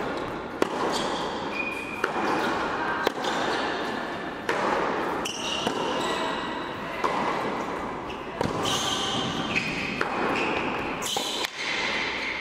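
Tennis rally in an indoor hall: sharp racket strikes and ball bounces every second or so, with short squeaks of shoes on the hard court, all echoing in the large room.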